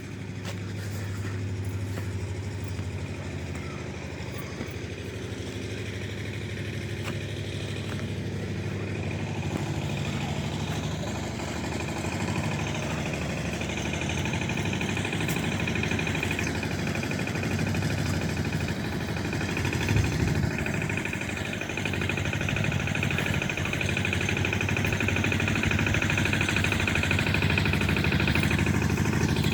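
Motor vehicle engine running steadily, gradually getting louder.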